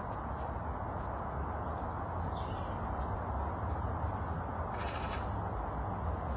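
Outdoor garden ambience: a steady low background rush with a bird's thin falling whistle about two seconds in and a short noisy bird call about five seconds in.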